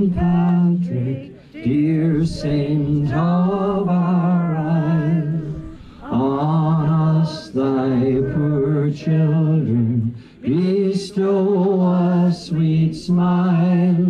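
A man singing solo and unaccompanied into a microphone, a slow melody of long-held notes with vibrato, pausing briefly for breath between phrases.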